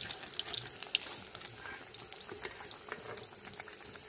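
Hot oil sizzling with many small crackles around chandrakanti pitha (moong dal and rice-flour cakes) deep-frying in a pan, the pieces fully fried.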